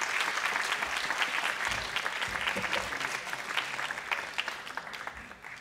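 Audience applauding, a steady patter of many hands clapping that fades out near the end.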